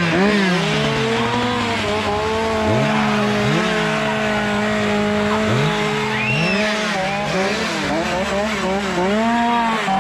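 Two-stroke chainsaw being revved again and again, its engine pitch climbing and dropping several times, with a longer stretch held at high revs in the middle.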